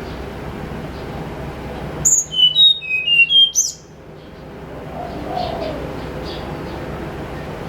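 Tledekan gunung songbird singing one short phrase of about six clear, high whistled notes, with sharp upward-sweeping notes at its start and end, about two seconds in. Fainter chirps follow. A steady low background rumble runs under it.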